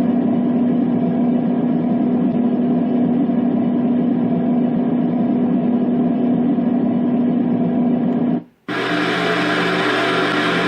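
Dreamegg D3 white noise machine playing a steady, muffled noise sound with a constant low hum. About 8.5 s in it cuts out for a moment and switches to a brighter, hissier noise sound.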